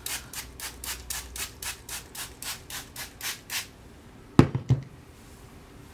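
Trigger spray bottle of water spritzed rapidly onto hair to dampen it, about four squirts a second for three and a half seconds. A sharp knock follows about four seconds in, with two smaller ones after it.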